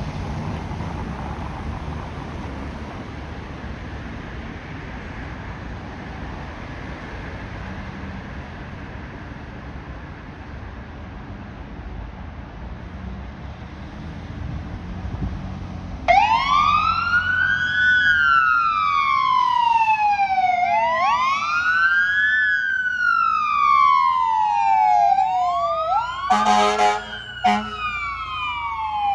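Steady traffic and wind rumble, then about halfway through a fire engine's siren starts, wailing slowly up and down. Near the end the engine's air horn gives two short blasts over the siren.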